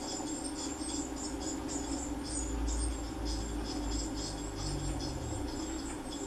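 Blue tit nestlings in the nest box keep up a steady stream of thin, high-pitched begging chirps, about three or four a second, over a constant low hum.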